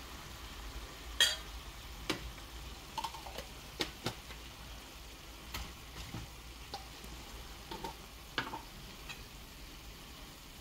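Metal spoon clinking against a stainless steel mixing bowl while seasonings are spooned in and small jars handled: scattered light clicks and taps, the loudest a ringing clink about a second in.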